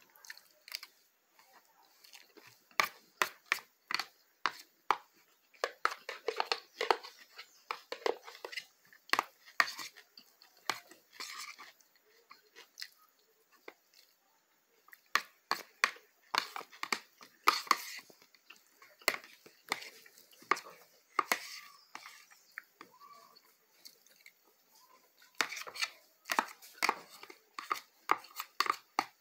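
Close-up eating sounds of a person chewing a mouthful of pasta: wet chewing in quick irregular bursts, with fork clicks against a plastic bowl. The sounds stop for about a second halfway through.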